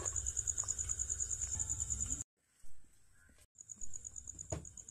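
A cricket chirping in a fast, even, high-pitched pulse of about ten beats a second, breaking off for about a second midway and then carrying on. There is a single light knock near the end.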